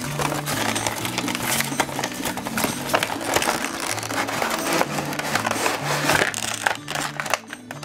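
Cardboard box and clear plastic packaging tray being handled and pulled out, a dense crackling and rustling with sharp clicks, over background music with a bass line.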